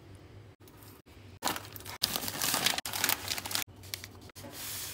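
Paper crinkling and rustling as a filled tortilla wrap is rolled up tightly in it. It is loudest from about a second and a half in, and there is a shorter crinkle near the end.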